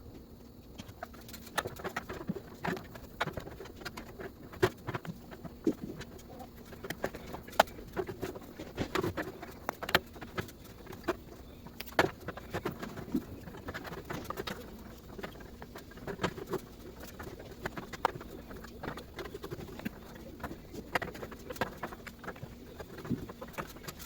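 Irregular clicks and knocks of hardware and parts being handled while assembling a 4U rack cabinet, over a steady low hum.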